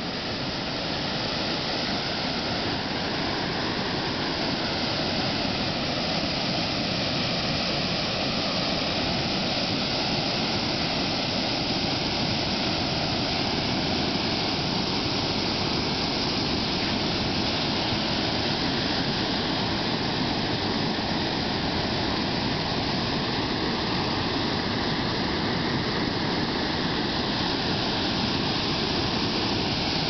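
River water rushing: a steady, even roar.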